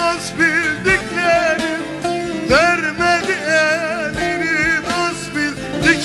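Turkish folk music: an instrumental passage between sung verses, with plucked strings under a melody line that wavers and slides in pitch.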